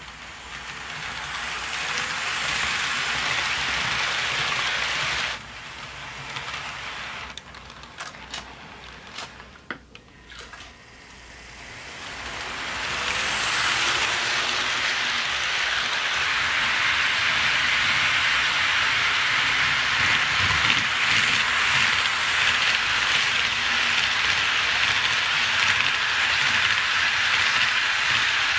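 HO scale model freight trains rolling on sectional track: a steady hissing rattle of metal wheels on the rails with the motors' hum beneath, louder as cars pass close. It drops off suddenly about five seconds in to a quieter stretch with a few sharp clicks, then builds again from about twelve seconds and holds.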